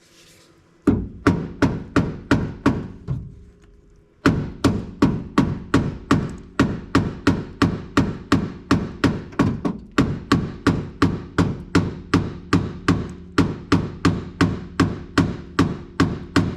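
Repeated sharp metallic taps on a 1961 Cadillac power window motor, each ringing briefly: a short run of about six, a pause, then steady tapping about two and a half times a second. It is a tap test to free a motor that gets power but will not turn, and the motor stays dead.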